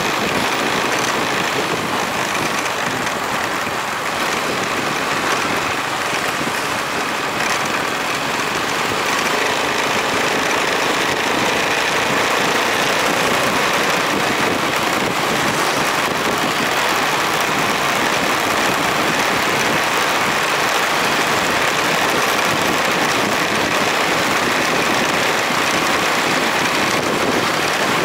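Riding a motorbike along a street: a steady rush of wind and road noise, with the bike's small engine running underneath, getting a little louder about ten seconds in.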